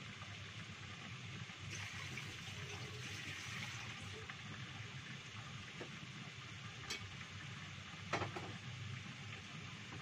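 Water boiling in a lidded wok used as a steamer over a gas burner, a steady hiss, with two light clicks in the second half.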